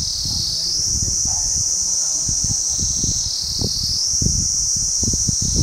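A high, steady chorus of insects, swelling and easing every few seconds, over low rumbling on the microphone.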